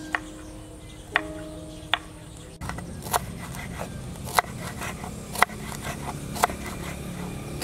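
Kitchen knife chopping red bell pepper on a wooden cutting board: sharp knocks about once a second, over soft background music with held notes.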